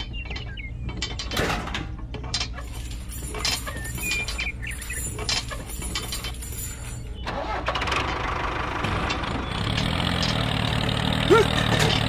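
Clicks and knocks of a model tractor and its bulldozer blade being handled. About seven seconds in, an engine starts and settles into a steady idle.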